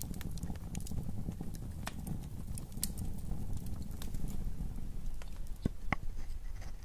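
A burning wooden match held to an incense cone: a steady low flame rustle with scattered small crackles. Near the end come two light metallic clicks as a filigree brass lid is set down on the brass incense holder.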